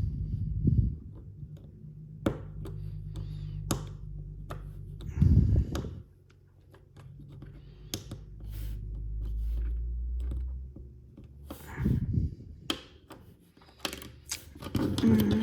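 Small plastic snap-together toy car parts being handled and pressed together: a run of light irregular clicks, with a few dull knocks against the table.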